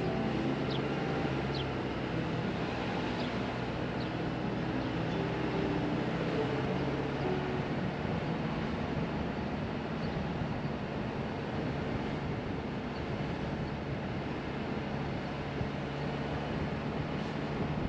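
A car driving along a narrow paved country lane, heard as steady tyre and wind noise with a low engine hum. A few faint, short, high chirps sound in the first few seconds.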